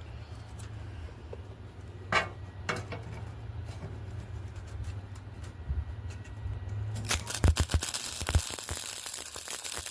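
Electric welder humming steadily with a few clicks, then about seven seconds in the welding arc strikes and crackles and hisses continuously as a bead is laid on the steel legs.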